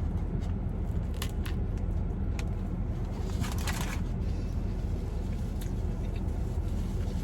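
Air conditioner running with a steady low hum, with a few faint clicks and a brief rustle about three and a half seconds in.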